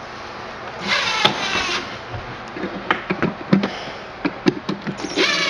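DeWalt cordless impact driver running in a burst of about a second as it drives a screw into wooden blocking, followed by a run of irregular knocks and clicks, then a second burst starting near the end.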